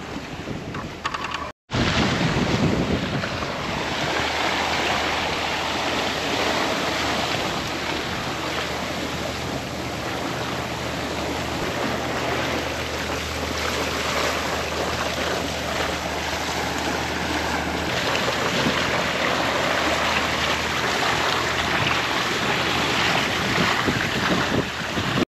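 Wind buffeting the microphone over the rush of sea water around a sailboat moving under sail, a steady loud noise with no engine running.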